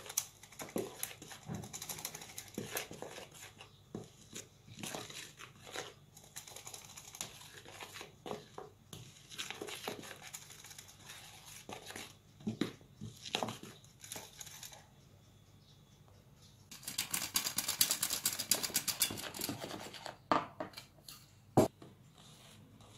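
A hand-held metal sieve shaken and tapped over a plastic mixing bowl as flour is sifted in, with a spatula scraping and stirring through the batter. Irregular scraping and tapping, a short pause past the middle, then a fast, even rattle for about three seconds and a few last knocks.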